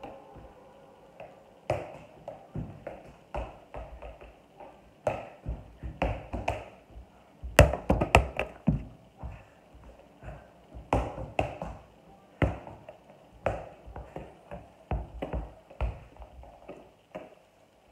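Soccer ball being juggled by bare feet: irregular taps and thuds as the ball strikes the foot and leg and drops onto the wooden floor, a few hits a second, loudest in a quick cluster near the middle.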